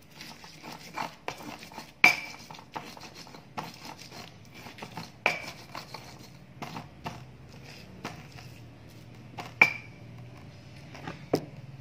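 Stone pestle grinding chilies for sambal in a stone mortar: irregular scraping and knocking of stone on stone, with a few sharper clinks that ring briefly.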